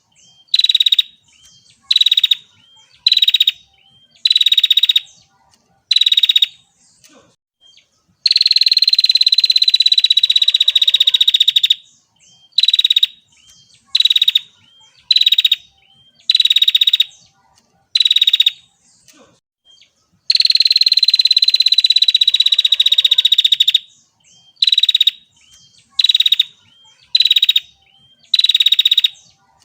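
Female prinia (prenjak) giving rapid, buzzy rattling trills. Most are short bursts of about half a second in quick series, and twice a long trill runs for three to four seconds.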